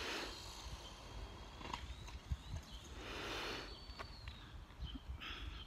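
Electric RC car running on the street: a faint high motor whine for a couple of seconds in the middle, with swells of tyre hiss coming and going, and a few light clicks.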